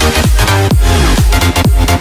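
Electronic dance music with a steady four-on-the-floor kick drum beat and synth chords.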